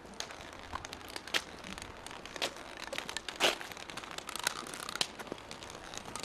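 Long white cane tip tapping and scraping across paving stones as a blind walker sweeps it side to side, mixed with footsteps: irregular clicks and scrapes, several a second, the sharpest about three and a half seconds in.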